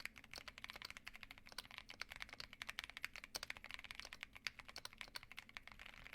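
Fast, steady typing on a Keychron Q1 Max mechanical keyboard fitted with pre-lubed Jupiter Red linear switches, giving a quiet, deep thock on each keystroke.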